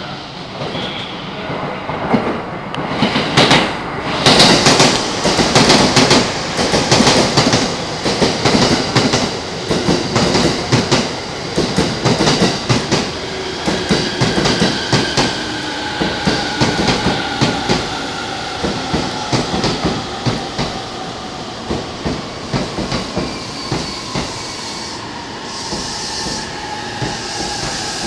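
A JR East E231/E233-series electric commuter train pulls in and slows to a stop, its wheels clicking over rail joints, busiest and loudest in the first third. From about halfway the traction motors whine in a falling pitch as the train brakes.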